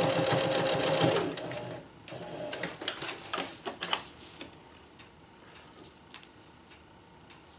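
Domestic sewing machine running a straight stitch at speed, locking the stitch at the end of the seam, and stopping about a second in. Then rustling and clicks as the ripstop nylon is pulled from under the presser foot and the thread is snipped with scissors.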